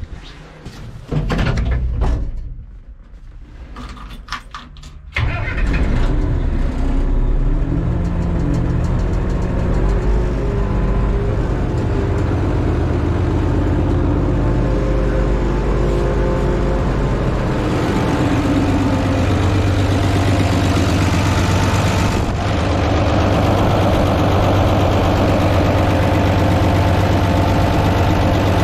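Minneapolis-Moline A4T-1600 tractor engine being started: some clicks and a short burst about a second in, then the engine catches about five seconds in and runs. Its speed climbs over the next few seconds, settles, and rises again later.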